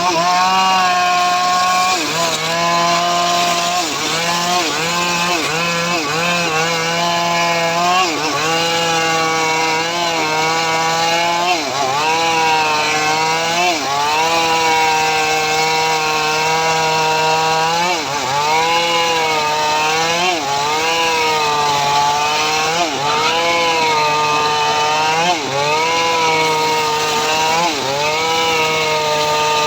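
Small high-revving engine of a home-built srekel saw rig cutting teak wood. It runs hard and continuously, its pitch sagging and recovering every second or two as the cut loads it.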